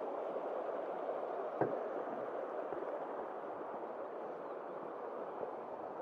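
Steady rushing of flowing water from a stream or river, with one sharp tap about a second and a half in.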